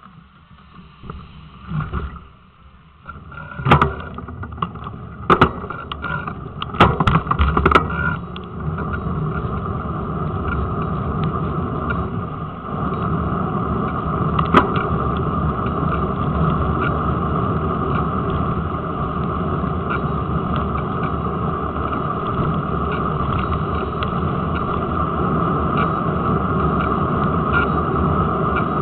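Bicycle rolling along a tarmac road, heard through a camera clamped to its front forks: a steady rushing noise of tyres and moving air, with a run of sharp knocks and rattles over roughly the first eight seconds as the bike jolts over bumps.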